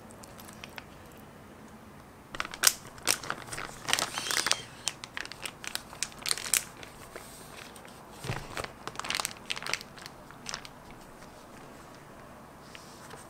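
Plastic zip-top freezer bag crinkling and crackling in short bursts as hands handle it, press the zipper closed and flatten it. The crinkling runs from about two seconds in to about ten seconds in.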